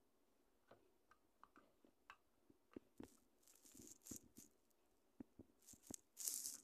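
Small plastic toy furniture pieces being handled: faint scattered clicks and light taps of plastic on plastic. Bursts of rustling come in the second half, the loudest just before the end.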